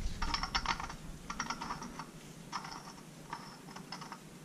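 Light metal clicking and rattling as a gear puller is screwed by hand onto a gear's threads, coming in short bursts of quick clicks about once a second.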